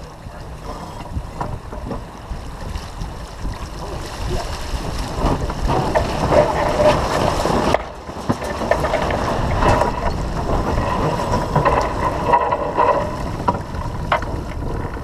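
Wind buffeting the microphone and water rushing along the hull of a sailing yacht under way, with the jib flapping as the boat tacks.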